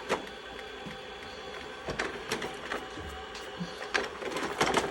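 Shark robot vacuum running: a steady motor whir as it drives and turns while trying to dock, with several sharp clicks about two and four seconds in.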